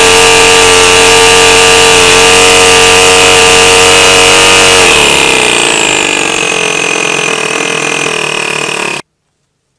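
Toyan two-cylinder four-stroke model engine with a centrifugal supercharger running flat out at about 11,000 rpm, the supercharger spinning at about 77,000 rpm, with a steady high whine over the engine note. About five seconds in the engine slows to about 5,000 rpm, getting quieter with its pitch and the whine falling, and the sound cuts off abruptly near the end.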